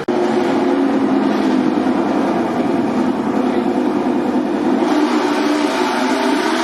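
A MotoGP racing motorcycle engine running steadily at a fast idle, with a slight change in pitch about five seconds in.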